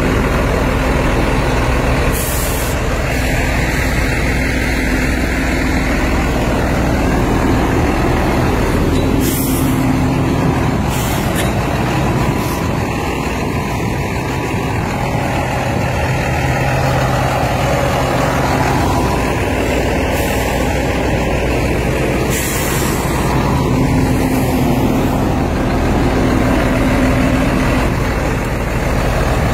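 John Deere 8410T track tractor's diesel engine running steadily while stuck in deep mud, with a few brief high hisses over it.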